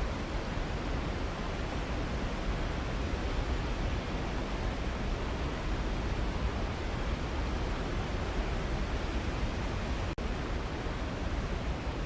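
Waterfall, a steady full rush of falling water with no change in level. A split-second dropout breaks it about ten seconds in.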